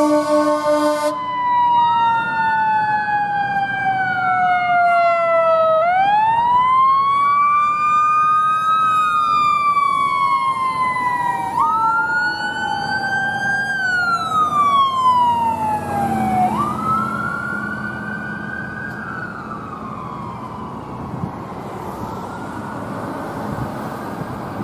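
A fire engine's air horn blast that cuts off about a second in, then two emergency sirens wailing together in slow rising and falling sweeps. The sirens fade away after about seventeen seconds, leaving steady road noise.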